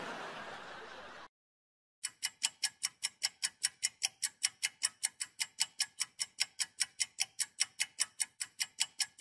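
Countdown clock ticking as a sound effect, sharp even ticks about four a second, starting about two seconds in after a brief fading noise and a moment of silence.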